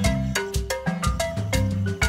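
Background music: a bright melody of short struck notes over a steady bass line.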